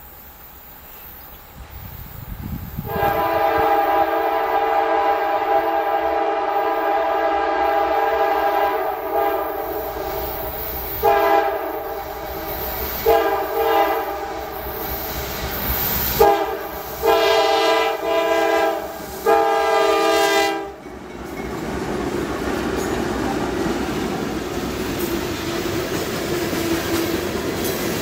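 Diesel freight locomotive's air horn blowing for the crossing. It begins with one long blast of about six seconds from about three seconds in, then gives a string of shorter and longer blasts that ends about twenty seconds in. After that comes the steady rumble and wheel clatter of coal hopper cars rolling past.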